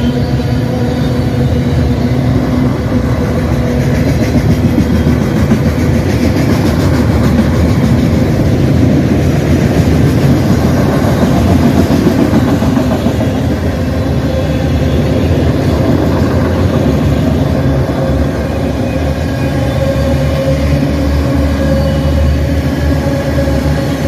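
CN freight train rolling past: a loud, steady rumble of the train on the rails, with a steady hum running through it.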